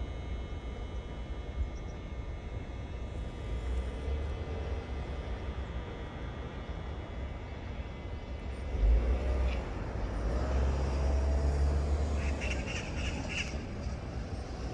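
Birds calling outdoors over a steady low rumble, with a quick run of about four chirps near the end.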